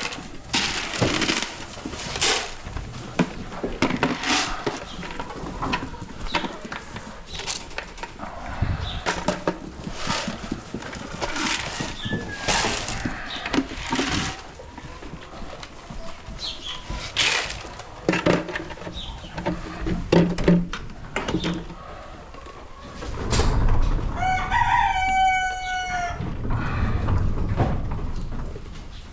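A rooster crows once, a call of about two seconds near the end. It sits over a steady run of rustling and short knocking clicks.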